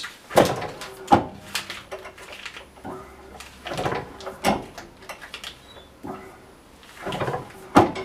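Hand-lever riveting press setting rivets through a ski skin's tail fixing: a series of sharp metal clunks as the press comes down on each rivet, with handling of the tool and skin between strokes.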